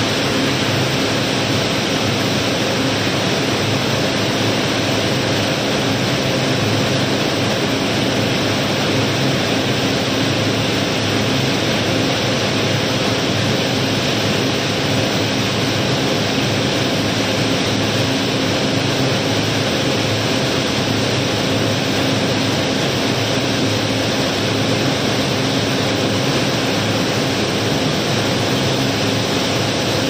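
Steady rushing rattle of river gravel streaming down through an unloading opening in a barge's hold, with a faint steady machine hum underneath.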